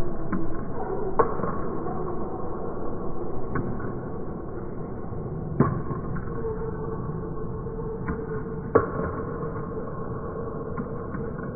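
Table tennis rally of forehand topspin drives: the ball clicking sharply off the bats and the table at irregular intervals.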